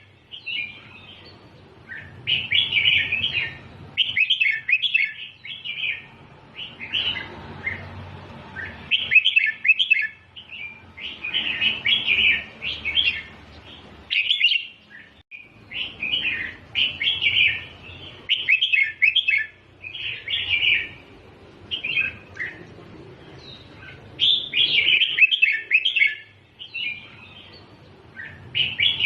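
Red-whiskered bulbul singing short, bright, warbling phrases over and over, one every second or so, with brief pauses between groups of phrases.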